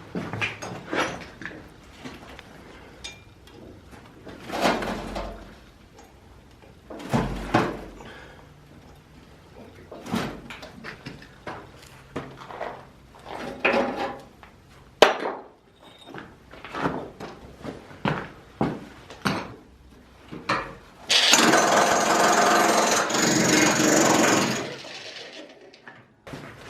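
Irregular knocks and bangs of work on an old boiler, then a power tool runs loudly for about four seconds near the end and stops.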